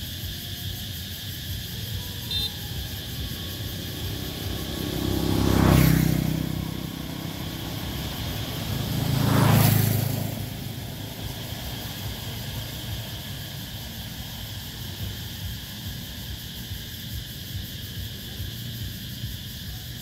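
Steady night chorus of cicadas shrilling, with two vehicles passing, each swelling up and fading away, about six and ten seconds in.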